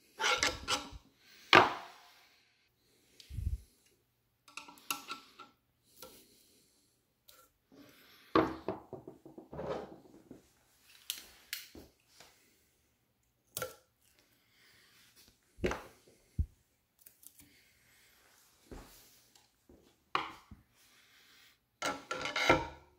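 A short steel pry bar through a zinc-plated screw eye, levering it round in a tight pilot hole in a wooden post: a series of separate short metal knocks and wood-and-thread scrapes with pauses between them, loudest about a second and a half in and again near the end.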